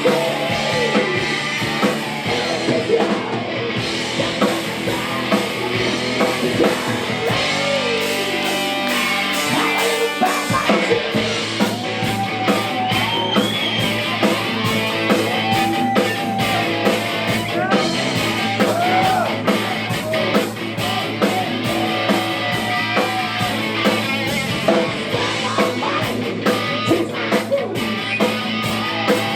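Rock music with electric guitar, drums and a singing voice.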